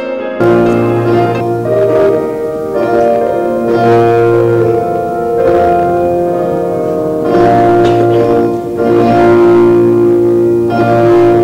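Instrumental music with long held notes, turning fuller about half a second in.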